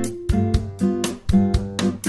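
Background music: plucked and strummed guitar with a steady beat.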